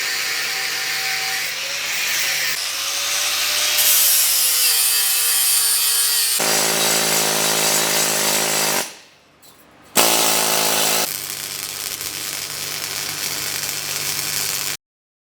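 Power tools working on metal in a series of short clips. One tool's pitch dips and recovers a couple of times early on. The sound drops almost to nothing for about a second about nine seconds in, then a tool starts again.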